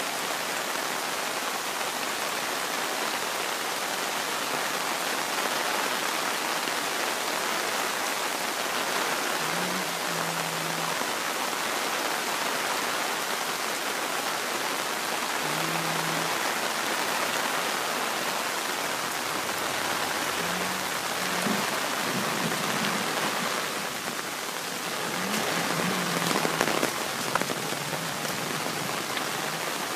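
Steady hiss of water, rain and running flow, as a dry creek bed begins to run. Near the end it swells briefly, with a few sharp clicks.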